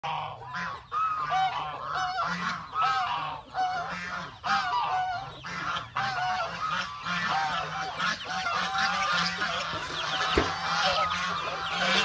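Barnyard poultry calling over and over, about two calls a second, more birds joining in and overlapping in the second half.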